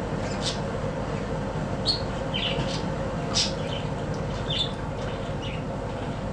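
Small birds chirping, short high calls scattered every half second or so, over a steady low hum.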